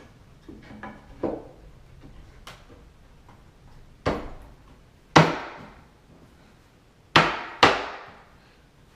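Hammer striking wood, tapping a wooden side skirt into place on a table frame: a few light taps, then four hard, sharp knocks in the second half, the last two in quick succession.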